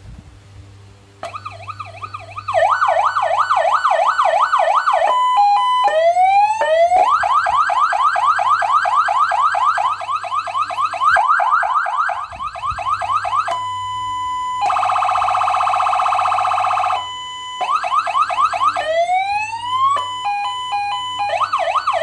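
200-watt electronic siren being tested, stepping through several tones: fast repeating yelp sweeps, slower rising wails, a steady tone and a fast warbling buzz, with short breaks between patterns. It comes in quietly about a second in and turns loud a moment later.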